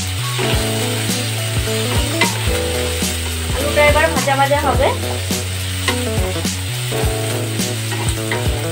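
Cubed potatoes sizzling as they fry in oil in a nonstick kadai, stirred with a spatula that clicks and scrapes against the pan many times. About four seconds in there is a brief warbling, squeaky sound, the loudest moment.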